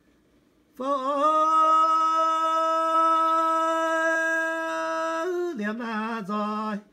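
A man singing unaccompanied in a traditional chanted song style. He holds one long, steady note for about four and a half seconds, then sings a few shorter, lower notes before breaking off near the end.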